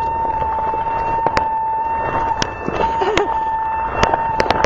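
A vehicle's alarm holds one steady high tone, set off by a nearby gunshot. Over it come several sharp pops of fireworks going off, a few in quick succession near the end.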